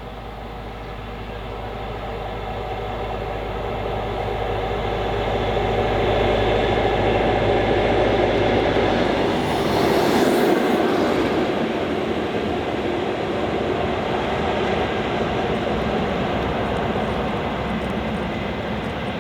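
Diesel train approaching and passing at speed: a low engine drone and rumble build over several seconds, peak about ten seconds in with a brief hiss as it goes by, then the rumble of the carriages runs on.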